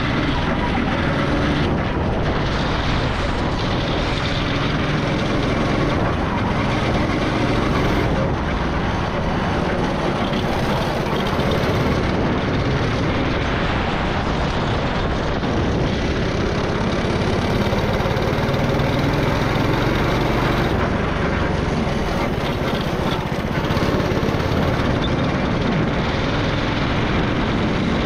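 Go-kart engine running as the kart is driven around the track, its pitch wavering up and down with speed.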